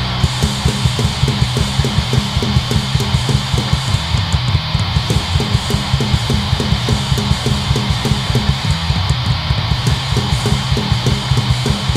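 Hardcore punk band playing live: distorted electric guitar and bass over a fast, steady drum beat, with no vocals.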